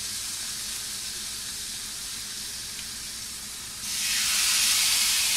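Raw seasoned New York strip steak sizzling on a hot ridged stovetop grill pan. About four seconds in, a second steak is laid on and the sizzle jumps louder.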